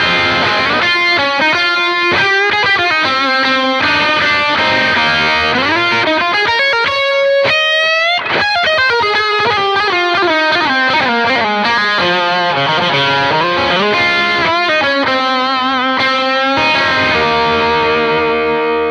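Overdriven electric guitar solo from a 1964 Fender Stratocaster's bridge pickup, through a Bondi Sick As overdrive into channel 2 of a Suhr PT100 amp and a Celestion A Type speaker: melodic lead lines with bent and vibrato notes, and a quick rise in pitch about seven seconds in. The bridge-pickup tone is bright but doesn't get ice-picky.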